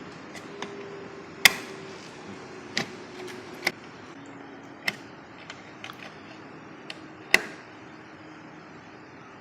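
Scattered clicks and knocks of a car's front fog light housing being handled and pushed back into place in the bumper, with two sharper knocks, one about a second and a half in and one near seven seconds.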